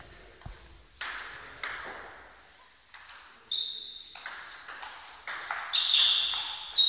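Table tennis rally: the ball clicking off the paddles and bouncing on the table. The hits start about a second in and come roughly every half second, growing louder toward the end.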